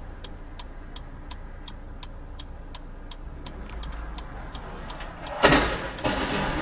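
Car turn-signal indicator ticking steadily, about three clicks a second, over the low hum of an idling engine. Near the end a sudden loud rush of noise cuts in, the loudest sound here.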